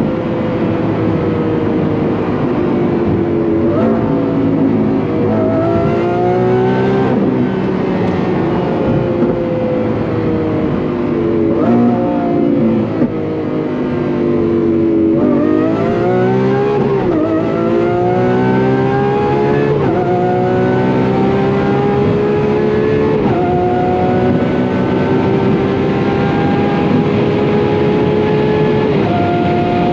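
Lamborghini Aventador SVJ's 6.5-litre V12 through an aftermarket straight-pipe exhaust, heard from inside the cabin. The car first slows, the note jumping up at each downshift. From about halfway it pulls at full throttle, the note rising and dropping back at each of four upshifts.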